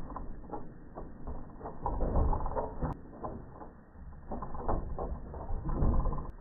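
A dog's paws drumming and rattling on the planks of an agility dog walk as it runs across, a quick run of knocks and thuds with heavier thumps about two seconds in and again near the end.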